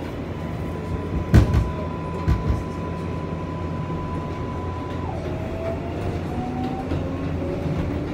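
New York subway 7 train running on the elevated line, heard from inside the car: a steady rumble with a few wheel clacks over rail joints in the first couple of seconds. Over it is the whine of the electric traction motors, a held tone that about five seconds in drops and then climbs again as the train picks up speed.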